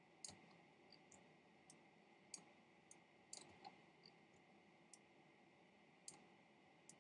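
Near silence with faint computer mouse clicks, about a dozen at irregular intervals.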